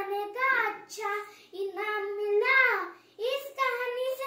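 A young boy's high voice reciting in a sing-song way, with long held notes broken into short phrases.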